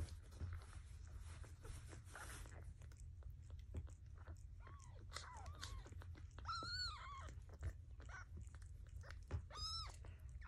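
Newborn kittens mewing: a few short, high, rising-and-falling cries, the two clearest in the second half. Faint rustling and small clicks of a cloth rubbing the kittens run underneath.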